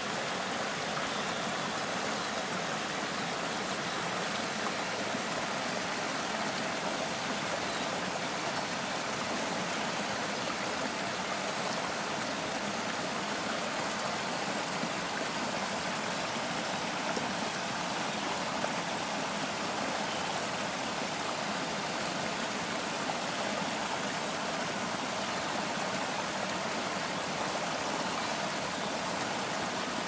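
Steady rush of running water from a small stream pouring over a low cascade, even and unbroken throughout.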